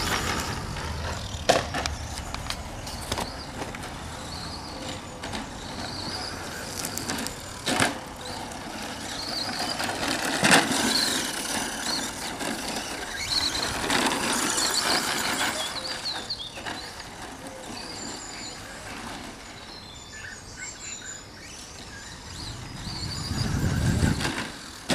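Team Associated SC10 electric radio-controlled short-course truck running on a track: its motor whine rises and falls with the throttle, over tyre noise and several sharp knocks from bumps. It is loudest as it passes close near the end.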